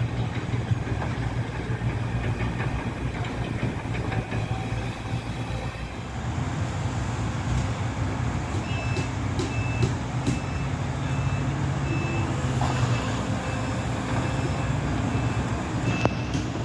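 Construction vehicle engine running steadily, with a reversing alarm beeping at a steady pace from about halfway through.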